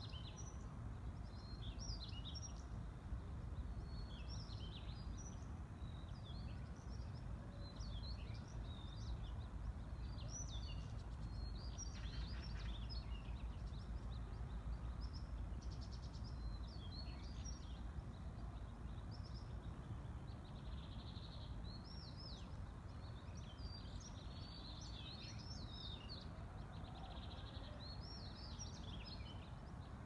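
Small birds chirping in many short, quick calls all through, over a steady low background rumble.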